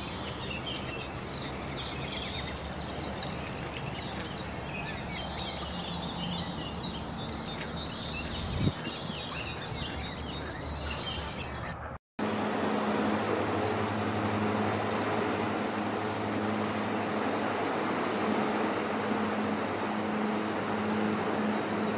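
Small songbirds chirping and warbling over a steady outdoor background, with a single brief knock about nine seconds in. Midway the sound cuts out suddenly and gives way to a steady rushing noise with a faint low hum.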